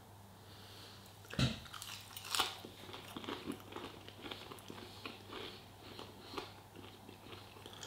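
A bite into a crispy coated chicken piece about a second and a half in, a second crunch a second later, then close-up chewing with small crunches.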